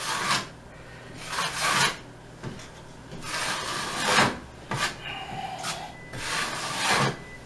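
Metal putty knife scraping as it spreads joint compound across a plaster wall: about four long smoothing strokes, with a shorter one in between.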